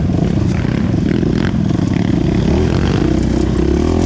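Off-road dirt bike engine running steadily as the bike rides along a dirt trail, heard from on the bike itself. The engine note shifts about two and a half seconds in.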